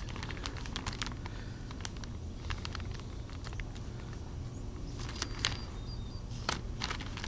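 Plastic-sleeved sets of tubular ceramic capacitors being handled: scattered crinkles and clicks of the plastic packaging, a few sharper ones near the end, over a low steady rumble.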